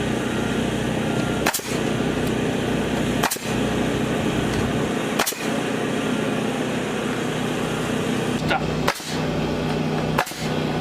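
An engine running steadily, broken by six sharp cracks at irregular intervals of one to two seconds.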